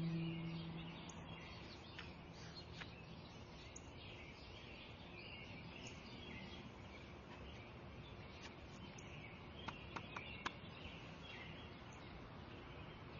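Quiet outdoor ambience with small birds chirping now and then, and a quick run of three sharp chirps about ten seconds in. A held musical tone fades out in the first second or two.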